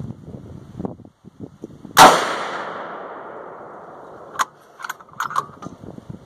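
.450 Bushmaster bolt-action rifle firing a single shot about two seconds in, loud, with a long echoing tail that dies away over about two seconds. Near the end, a few quick metallic clicks as the bolt is worked to eject the spent case.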